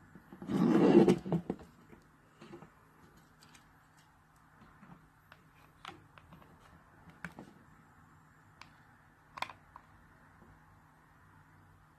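Light scattered clicks and taps from hands handling plastic fridge-kit parts while gluing the edges, with one louder scraping rustle about a second in. A faint steady low hum runs underneath.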